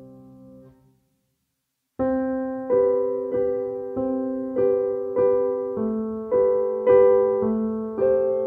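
Background piano music: a held chord fades out, about a second of silence follows, then a new passage of repeated struck chords, a little under two a second.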